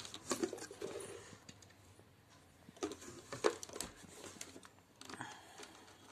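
Thin clear plastic container being handled, its wall crinkling, with a few sharp clicks and taps as a metal strip and wire are worked inside it.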